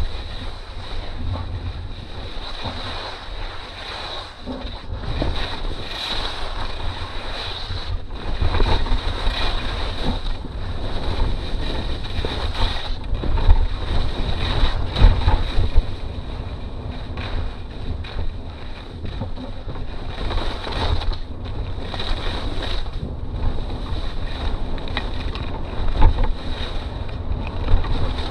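Wind rushing over a skier's body-worn camera microphone during a fast descent, with the scrape of skis turning on hard, slick snow coming through in uneven surges.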